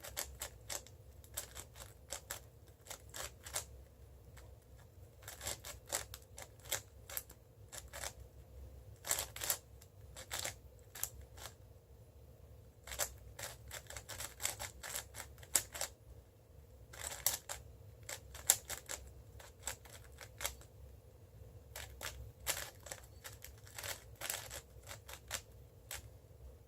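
A 5x5 speedcube, a Cubicle Labs WuShuang M, being turned fast by hand: its plastic layers click and clack in quick irregular runs of turns with short pauses between.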